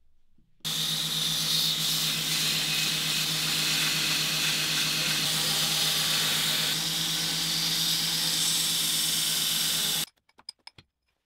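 Belt grinder running with a steel plate pressed against the moving belt: a steady motor hum under a loud grinding hiss. It starts abruptly about half a second in and cuts off near the end, followed by a few faint clicks.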